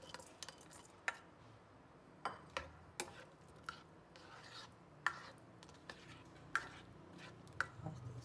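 Spatula stirring onion and green chilli pieces in oil in a nonstick karahi: light, irregular taps and scrapes against the pan, about one every half second to a second.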